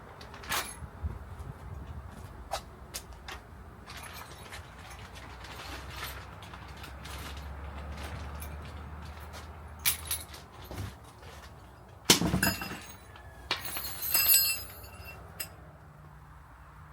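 Scattered clicks and metal clinks, with a louder clatter about twelve seconds in and another around fourteen seconds.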